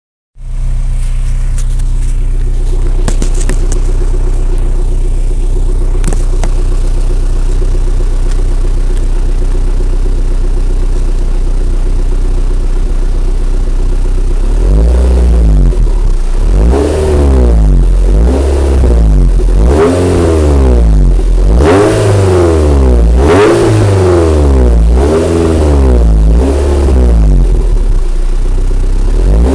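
MG TF engine breathing through an aftermarket Scorpion exhaust, Toyosport manifold and de-cat pipe, idling steadily at first. From about halfway through it is revved in a series of quick throttle blips, rising and falling about once every second and a half.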